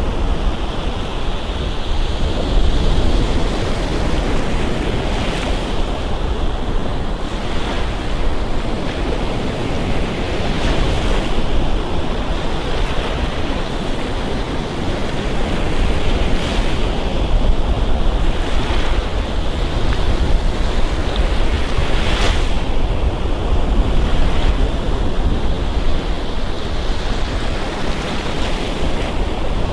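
Ocean surf washing up on a sandy beach: a steady rush of water, with a louder splash every few seconds as a wave breaks.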